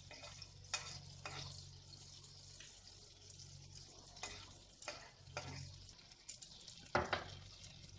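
Butter melting in a steel wok, sizzling faintly with scattered small pops and crackles, the loudest about seven seconds in, over a low steady hum.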